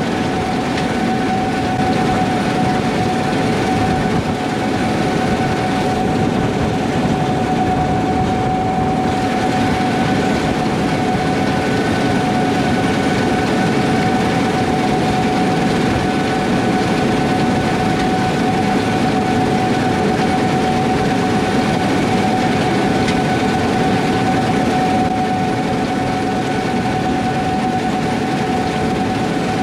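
Gleaner S78 combine running steadily, a constant high whine over the engine and machine noise.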